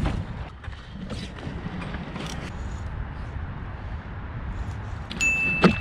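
Steady wind rumble on the microphone, with scattered light clicks and knocks of fishing tackle being handled on the boat. Near the end there is one short high-pitched beep.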